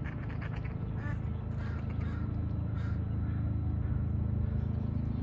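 Mallard ducks giving several short quacks over the first few seconds, above a steady low rumble of background noise.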